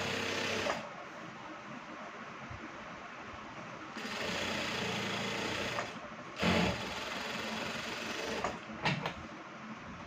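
Single-needle industrial sewing machine stitching a neck band onto a kameez, running in two short bursts: one stops just under a second in, the other runs from about four to six seconds. A brief loud knock and a few clicks follow as the fabric is handled.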